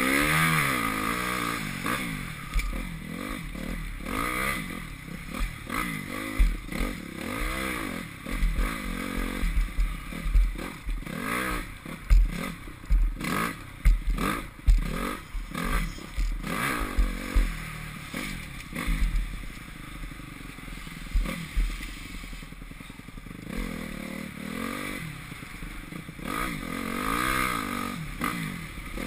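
Honda CRF250R's single-cylinder four-stroke engine revving up and falling back again and again as the bike is ridden hard over a rough dirt track, with sharp knocks and clatter from the bumps, heard from a camera mounted on the bike. The knocks are thickest about a third of the way in, and the engine runs more evenly for a while after the middle.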